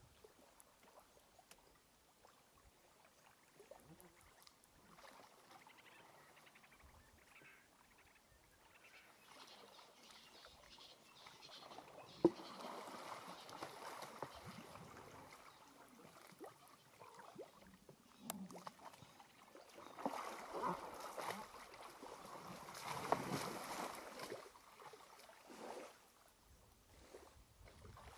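Faint water sloshing and splashing as two African elephants shove and wrestle in a waterhole, swelling in two stretches in the middle and towards the end, with a couple of sharp clicks.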